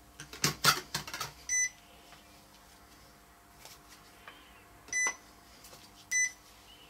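Multimeter continuity beeper giving three short beeps as the test probes touch the radio's onboard fuse, after a cluster of clicks from handling the probes in the first second or so. The beeps signal continuity: the fuse is intact.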